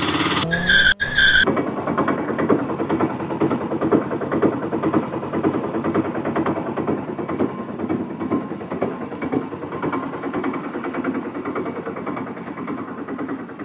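A small motor or engine running steadily with a fast, even chatter. A brief high steady tone sounds in the first second and a half.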